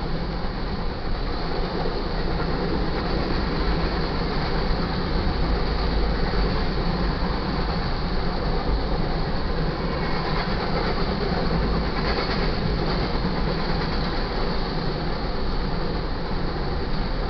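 Freight train's covered hopper cars rolling past, steel wheels rumbling and clacking steadily on the rails.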